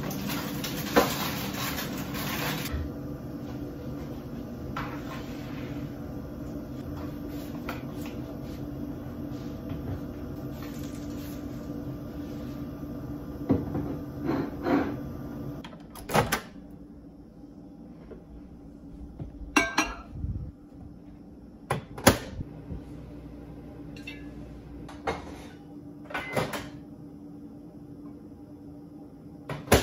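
Kitchen handling sounds: refrigerator and cupboard doors opening and shutting and glass jars set down on a counter, heard as a series of separate knocks and clicks, the loudest about 22 seconds in. Under them a steady low hum that drops away about halfway through.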